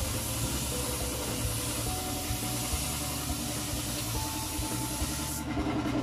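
Gravity-feed air spray gun hissing steadily as it sprays primer onto a bare steel gate panel; the hiss cuts off suddenly about five and a half seconds in. A low steady hum runs underneath.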